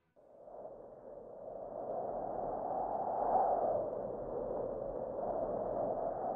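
A soft, airy rushing sound effect, like muffled wind, that swells in over about two seconds and then holds steady.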